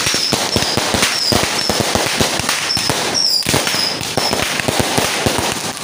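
Fireworks and firecrackers going off in a dense, irregular string of sharp bangs, with short high whistles cutting in about eight times.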